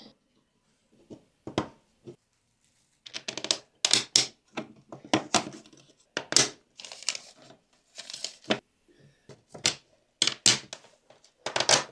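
Irregular clicks, clacks and short scrapes of 3D-printed plastic parts being handled and fitted together. They are sparse at first and busier from about three seconds in.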